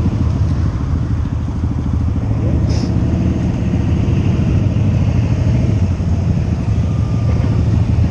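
Motorcycle engines running close by in a group, a steady low rumble, with faint rising revs from other bikes twice.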